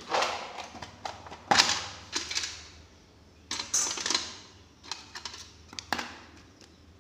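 Irregular sharp clicks and knocks, several clustered together, from small hard objects.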